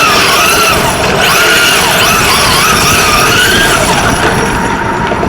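Electric motor of a 12S Rovan RC buggy running hard, whining with a pitch that rises and falls as the throttle changes, over a steady rush of noise.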